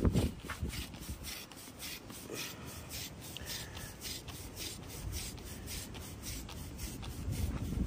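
Rhythmic rasping strokes, something rubbed or scraped by hand about three times a second, running steadily.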